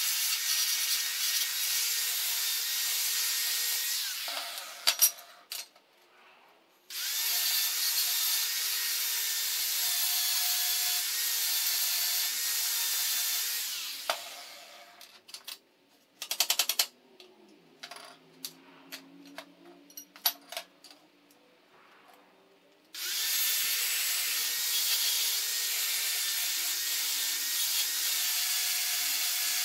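Angle grinder with a yellow disc grinding small steel bracket pieces: a steady high whine, stopping and spinning down about four seconds in and again around fourteen seconds. In the gaps, sharp metal clanks and clicks come from parts being handled on the steel table, and the grinder starts up again about seven seconds in and once more around twenty-three seconds.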